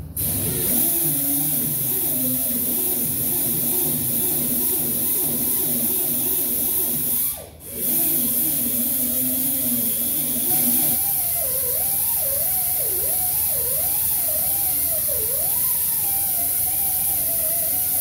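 Die grinder spinning a Roloc abrasive disc against the body metal, running steadily with a high hiss and a wavering pitch as the load on the disc changes. It stops briefly about seven and a half seconds in, then runs again.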